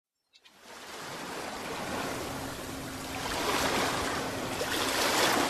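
Ocean surf: waves breaking and washing up a beach in a steady rush of water that starts about half a second in and swells twice.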